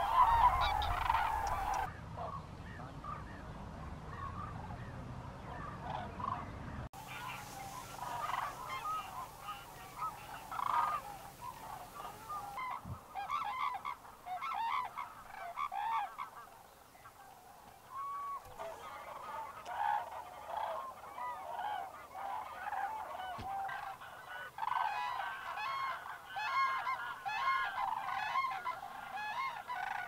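A flock of common cranes calling, many overlapping calls from several birds at once, loudest at the start and thickening again near the end.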